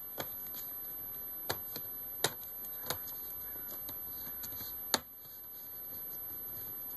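Sharp plastic clicks and snaps, about six of them at uneven spacing, the loudest about five seconds in: the clips of a Dell Latitude E6510's screen bezel being pried loose.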